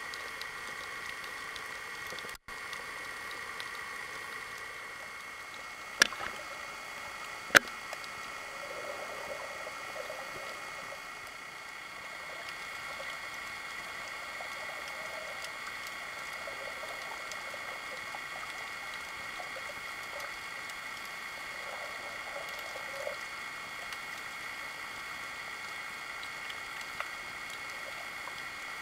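Steady underwater hiss picked up by a submerged camera, with two sharp clicks about six and seven and a half seconds in.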